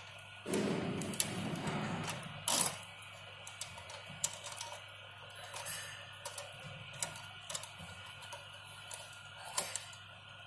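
Irregular metallic clicks, taps and rattles of hand tools and parts as the drum brake cable of an electric scooter is unfastened. There is a short scraping rattle early on and a sharper click shortly after, over a steady faint hum.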